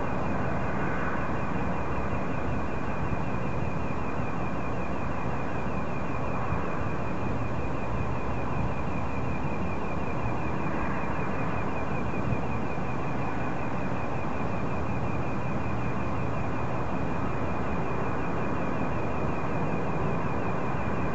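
Unidentified pulsating noise: a steady high-pitched tone pulsing in a fast, even rhythm over a constant low hum and rumbling hiss, unchanging throughout.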